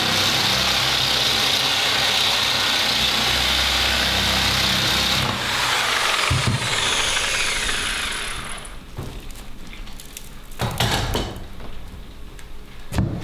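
Angle grinder fitted with a toothed scabbling wheel, stripping old paint off a narrowboat's steel side with a steady high whine and grinding. About six seconds in it is switched off and winds down with a falling whine, followed by a few sharp knocks.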